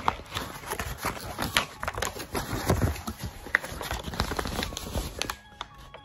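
Paper sheets and a plastic bag being crumpled and rustled by hands, a busy run of crackles and light clicks. Near the end a simple melody of steady notes starts to come in.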